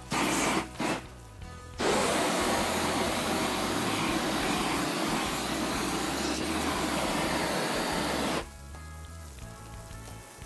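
Handheld gas torch firing at a ribeye steak to sear it: two short blasts, then a steady rushing blast of about six seconds that cuts off suddenly. Background music plays underneath.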